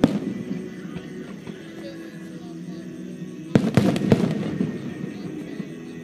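Aerial fireworks shells bursting: one sharp bang right at the start, then a quick cluster of several bangs and crackles about three and a half seconds in, each with a rumbling echo trailing after.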